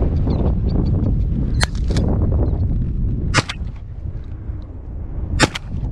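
Shotgun shots fired at flushing Hungarian partridge: three sharp reports about two seconds apart, the last the loudest, over steady wind noise on the microphone.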